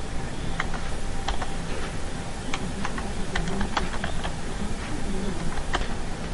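Computer keyboard keys clicking as a word is typed: about a dozen separate keystrokes at an uneven pace, over a steady low background hum.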